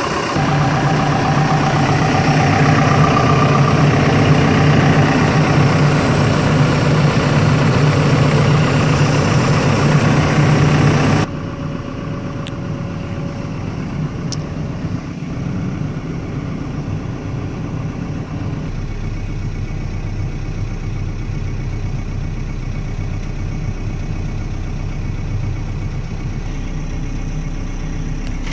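Volvo EC140 excavator's diesel engine running steadily, heard loud and close from beneath the machine with a strong low hum. About eleven seconds in it abruptly becomes quieter and duller, as heard from inside the cab.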